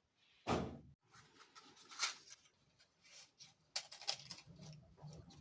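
Kitchen handling noises: a dull thump about half a second in, followed by scattered light clicks and knocks.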